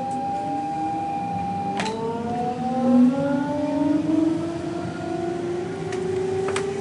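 Copenhagen S-train's electric traction motors whining as the train accelerates away from a station, several tones rising steadily in pitch together. A couple of sharp clicks sound, about two seconds in and again near the end.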